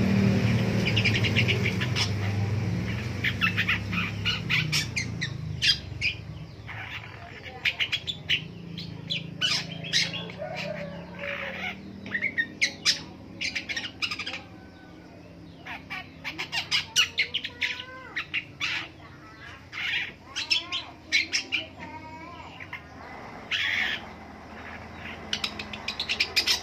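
Long-tailed shrike (pentet) singing: clusters of rapid, sharp notes and harsh chatter, with some gliding notes, in phrases separated by short pauses. A low rumble fades out over the first few seconds.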